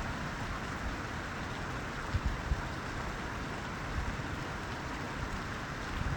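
Steady rain falling, a constant hiss, with wind buffeting the microphone in low thumps about two seconds in.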